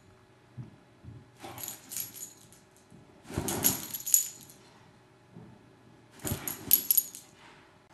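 Metal tags on a vizsla puppy's collar jingling in three bursts as the puppy moves about, with rustling of the bedspread under it.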